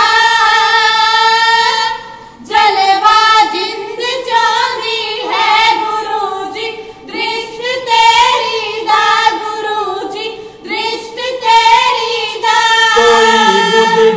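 Three young women singing Punjabi kavishri in unison, unaccompanied, in long held notes with short breaks between lines. A lower male voice comes in near the end.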